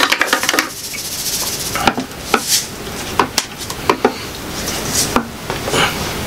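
Metal utensils clinking and scraping against a pan and dishes as pasta is served, in a string of separate sharp clinks. A salt shaker rattles briefly in quick ticks at the start.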